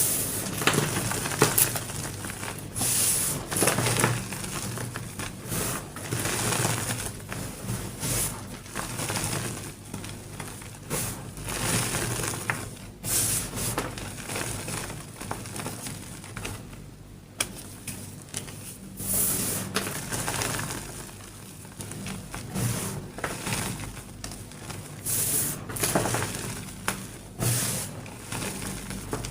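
Painted gym chalk block crushed into crumbs, a string of irregular dry crunches and crumbling with short pauses between them.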